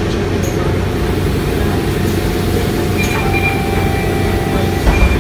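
Mercedes-Benz Citaro city bus heard from inside the passenger cabin: steady engine and road rumble as it drives. From about three seconds in a thin high squeal is held for about two seconds, and a short thump comes near the end.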